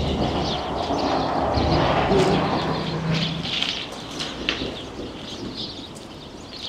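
Street ambience: birds chirping over the steady low rumble of a passing motor vehicle, which fades away about halfway through.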